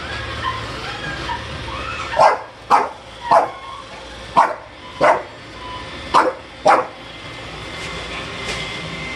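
A dog barking seven times in an uneven run over a low steady hum.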